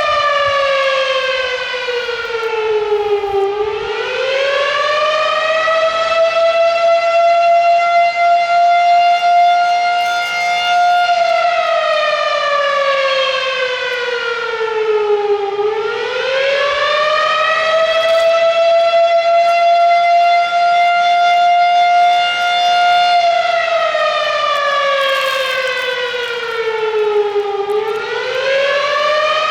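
Volunteer fire department siren wailing loudly in slow cycles. Its pitch rises, holds high for several seconds and then sinks low again, about once every twelve seconds. The siren is calling volunteer firefighters to the station.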